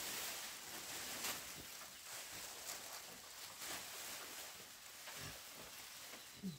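Faint rustling and scraping, with a couple of short, low pig grunts near the end.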